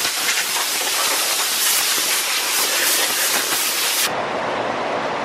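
Pneumatic cutoff tool running on air and cutting the sheet-metal edge of a car door, a loud steady hiss. About four seconds in it changes abruptly to a softer, duller noise.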